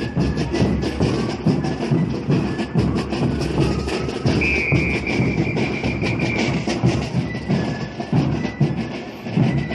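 A marching folk band of massed bass drums and snare drums beats a steady, fast rhythm for the dance, with a thin high melody line above it. Near the middle a single high whistle-like note is held for about two seconds.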